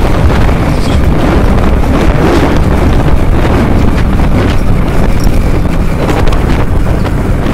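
Loud, steady wind buffeting on the microphone of a motorcycle riding at speed, over the sound of the bike running on the road.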